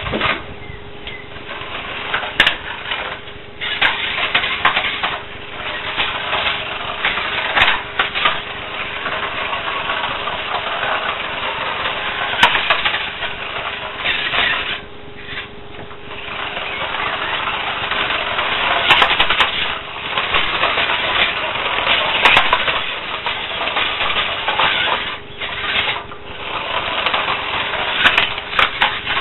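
Small electric radio-controlled car driving over brick paving, its motor and wheels running in spells with a couple of short pauses.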